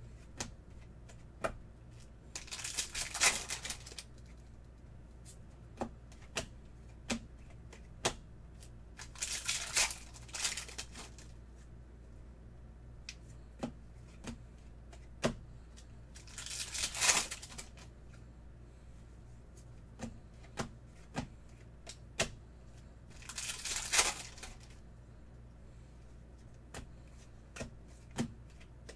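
Bowman baseball card packs being torn open by hand, four rasping tears about seven seconds apart, with short clicks of cards being handled and flicked between them.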